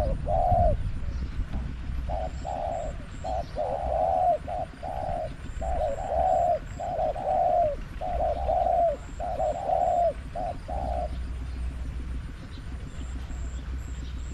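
Spotted dove cooing: a long run of short, repeated coo phrases that stops about 11 seconds in.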